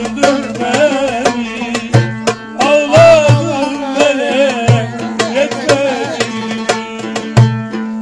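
Turkish folk music: a man singing a wavering, ornamented melody while plucking a cümbüş, over low drum beats and a steady held low note.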